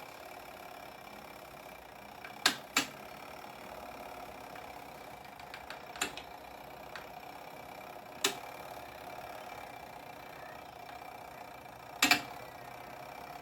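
Small electric motor of a twin-tub portable washing machine running with a steady hum, with five short sharp clicks or knocks at uneven intervals.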